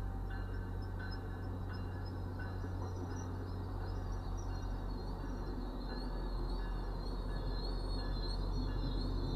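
MBTA commuter rail bilevel coaches rolling past, heard from inside a car: a steady low rumble, with a faint high wavering squeal that grows stronger about halfway through.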